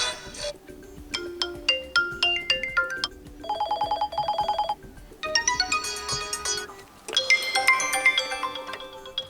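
Vivo Y01 phone speaker playing its built-in preset tones one after another, each cut short after a second or two: a descending run of chime notes, then a rapid repeated beeping pattern in the middle, then two more melodic tones.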